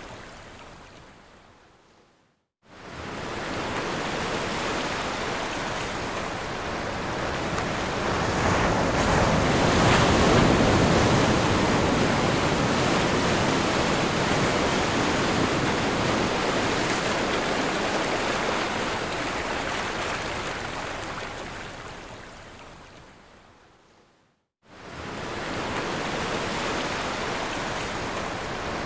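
Ocean surf washing in a continuous rush. It fades to silence about two and a half seconds in, comes back and swells, then fades out again near the end before returning.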